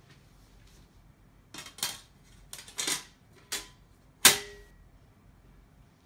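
Aluminium table-top plate being set onto the metal frame of a Qualz Stacking Low Table: a handful of clinks and knocks from about a second and a half in, ending in a loud metallic clank a little past four seconds that rings briefly.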